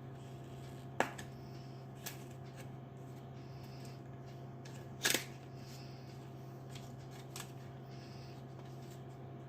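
Handling of a small product box being opened: two sharp clicks or snaps, about a second in and about five seconds in, with a few fainter taps between, over a steady low hum.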